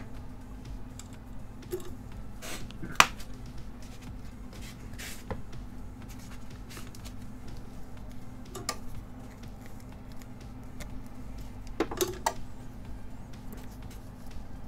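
Small tools and wires being handled on an electronics repair bench: scattered light clicks and taps, the sharpest about three seconds in, over a steady low electrical hum.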